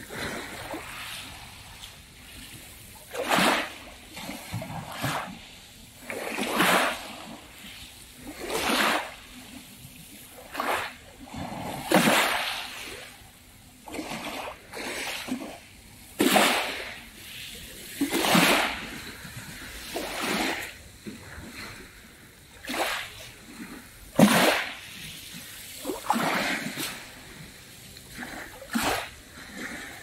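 Small sea waves lapping on a fine pebble beach, each wash a short hiss coming irregularly every one to two seconds.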